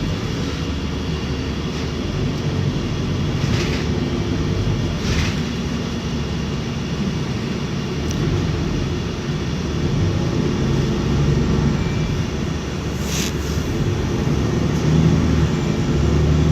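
City bus cabin: a steady low engine and road rumble as the bus drives, with three brief hisses.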